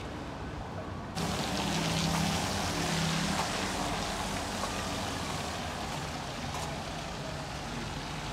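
City street noise that starts abruptly about a second in: a steady hiss of traffic, with a low engine hum for the first couple of seconds.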